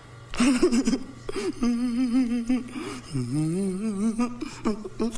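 A man's voice making two long, wavering wordless cries, the second sliding up in pitch, after a short gasp-like burst about half a second in.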